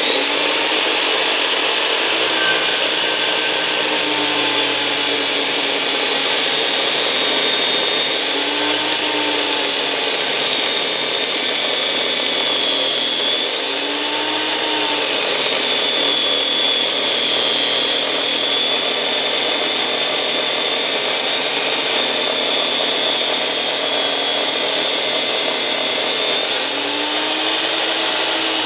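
DeWalt DW715 12-inch compound miter saw with an 84-tooth blade running continuously as it cuts slowly down through a thick roll of vinyl wrap. It makes a steady high whine that dips slightly in pitch a few times.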